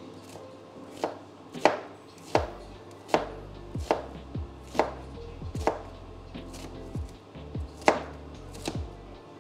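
Kitchen knife chopping an onion on a cutting board: a dozen or so sharp knocks of the blade hitting the board, at an uneven pace of about one to two a second, starting about a second in.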